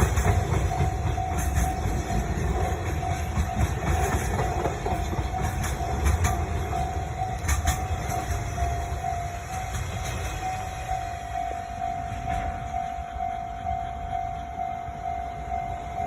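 EF64 electric locomotive and its train rolling over a level crossing: a heavy rumble with occasional wheel clicks that slowly fades. The crossing's warning alarm sounds as a steady tone throughout.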